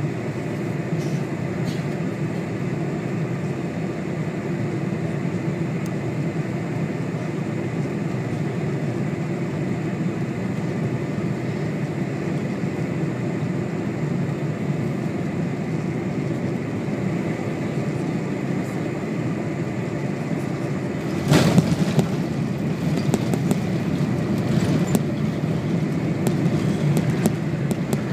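Boeing 747 cabin noise on final approach: a steady rush of engines and airflow. About three-quarters of the way through comes a sudden thump as the main gear touches down, followed by a louder rumble with rattling as the jet rolls along the runway.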